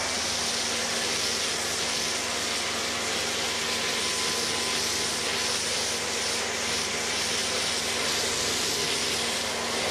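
Kärcher electric pressure washer running with an MTM Hydro foam cannon spraying foam: a steady hiss of spray over the even hum of the washer's electric motor and pump.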